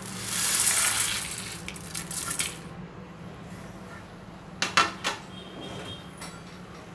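Whole spices and curry leaves tipped into hot oil in a nonstick kadai: a burst of sizzling that is loudest for about a second and dies down over the next two, with a few small clicks. Two sharp knocks follow about five seconds in.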